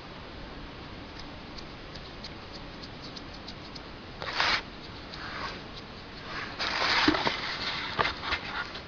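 Rustling and scraping as a hand works through finely ground feed meal in a cardboard box: two short bursts about midway and a longer, louder one near the end, with scattered light clicks.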